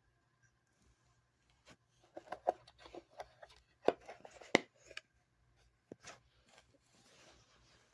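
A DeWalt bit-set case and its contents being handled: a run of irregular clicks and knocks, two of them sharper and louder in the middle, then a brief soft rubbing near the end.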